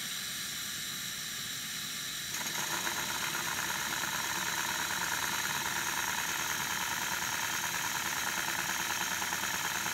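Accucraft Peckett live-steam model locomotive hissing steam on a bench test; about two and a half seconds in the controls are opened and the engine runs fast with its wheels free, a rapid, even beat of exhaust over the hiss.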